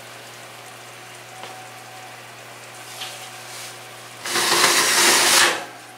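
Oven rack sliding out with a pan of roasting pork, potatoes and onions: a loud, noisy scrape about four seconds in that lasts about a second. Before it there is only a faint, low hiss, which may be the pan juices sizzling.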